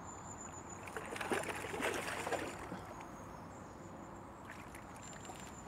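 Water splashing and sloshing as a hooked fish is played at the surface and brought toward a landing net, in irregular splashes that are busiest one to two and a half seconds in.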